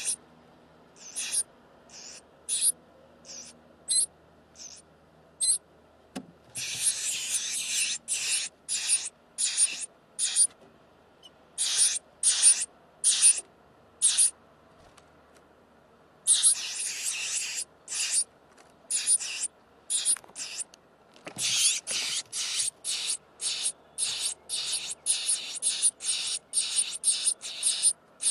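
Nestlings in a nest box giving harsh, hissy begging calls. Short rasps come singly at first, then in long, rapid runs about six seconds in and again through the second half, with a soft bump just before each of the two busiest runs.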